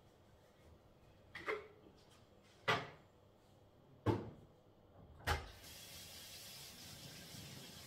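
Doors or cupboard doors opening and closing off-camera: four sharp knocks about a second and a half apart. Just after the last knock a steady hiss sets in and keeps going.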